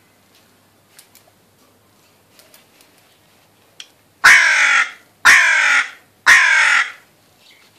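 Hooded crow cawing three times, about a second apart, each caw loud, about half a second long and dropping slightly in pitch.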